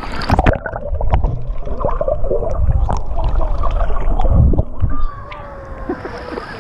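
Water gurgling and sloshing, with a low rumble and scattered clicks, louder through the middle and dropping off about five seconds in.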